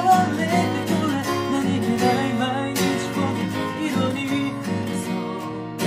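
Acoustic guitar strumming a ballad accompaniment, with a male voice singing the melody over it.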